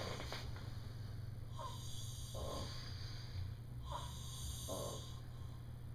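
A man breathing slowly in a pause between words, a few soft breaths, over a steady low hum.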